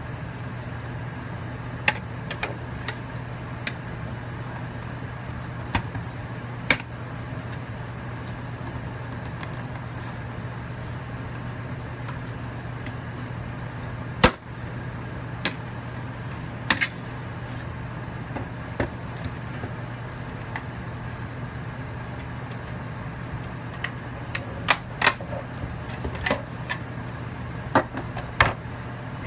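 Plastic clicks and snaps from the clip-fastened case of a Western Digital My Book Live as a small flathead screwdriver pries it apart. They come scattered, with the sharpest crack about halfway through and a quick run of clicks near the end, over a steady low hum.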